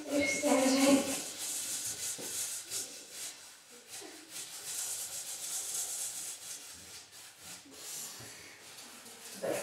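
Raw potatoes being grated by hand on a grater: a run of repeated rasping strokes.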